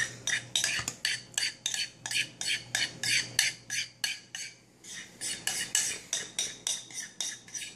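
A utensil scraping and tapping peanut butter out of a bowl, in quick repeated strokes about four a second, with a short pause about halfway.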